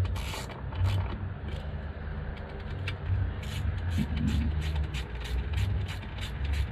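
Ratchet spanner clicking rapidly as bolts on an outboard engine's cover are tightened, about four to five clicks a second from roughly three and a half seconds in. A steady low rumble runs underneath throughout.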